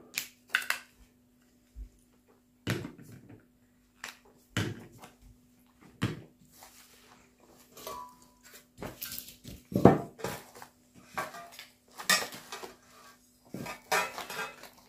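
Small metal jars with lids clinking and knocking together as they are handled, opened and stacked on a table, in a string of separate clicks that come thicker in the second half, with some plastic bag rustling. A faint steady hum underneath.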